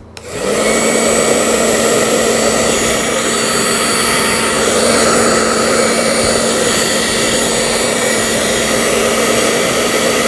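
XL 2000 professional hair dryer switched on and running steadily, a loud rush of air over a steady motor hum; the dryer is working.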